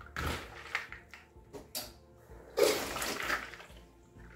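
Water sloshing in a plastic bowl of peeled black-eyed beans as they are rinsed at the sink, in two bursts, the second louder, about two and a half seconds apart.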